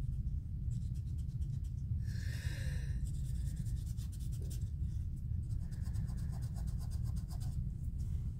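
Quick scratchy rubbing strokes on paper, as chalk is worked onto a paper-pieced shape, in several short runs over a steady low hum. A short squeak about two seconds in.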